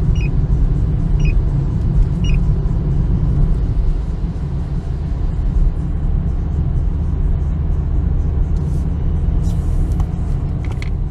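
Steady low rumble of a car's engine and tyres heard from inside the cabin. In the first few seconds a dashboard radar detector gives three short high beeps about a second apart. It is reacting either to a radar or to the automatic sliding doors of shops.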